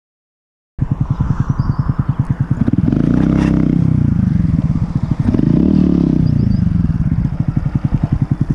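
Honda Grom's 125 cc single-cylinder engine running with a grinding, clattering noise, blipped twice so the pitch rises and falls. The grinding is the kind that the owner cured by replacing the clutch springs and clutch plate.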